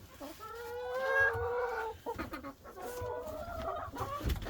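Hens calling and clucking in the coop: two drawn-out calls, one starting just after the beginning and one about three seconds in.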